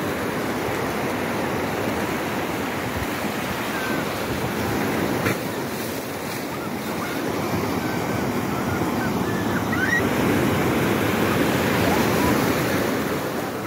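Ocean surf breaking and washing in over shallow water: a steady rush of waves and foam.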